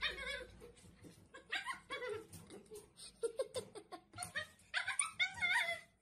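A dog whining and yowling in about four short, wavering calls, begging for food it cannot reach from inside its crate.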